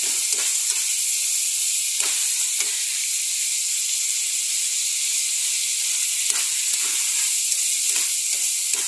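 String beans and pork sizzling steadily in a hot metal wok, with a metal spatula scraping and knocking against the pan now and then as they are stir-fried.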